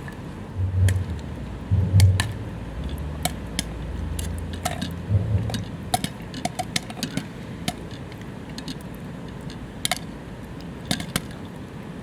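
Irregular sharp pops and crackles from popcorn cooking over a small wood-burning camp stove fire, with a few dull low thumps in the first half.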